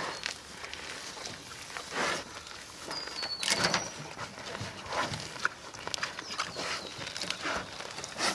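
Pigs rooting through garden soil and weeds with their snouts, snuffling and rustling in uneven bursts.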